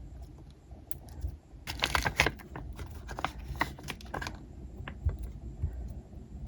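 Hands handling squishy toys: rapid small clicks and taps, in two busy clusters about two seconds in and about three and a half to four seconds in.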